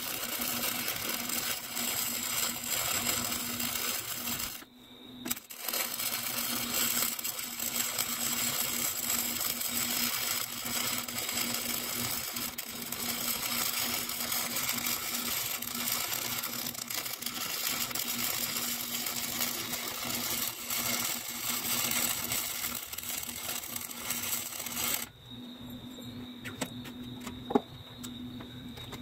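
MIG welder arc crackling and sizzling as a bead is stitched along a steel mounting bracket, with the wire feed set too fast by the welder's own verdict. The arc breaks off briefly about four and a half seconds in, runs on, and stops about 25 seconds in, leaving a steady low hum and a single click near the end.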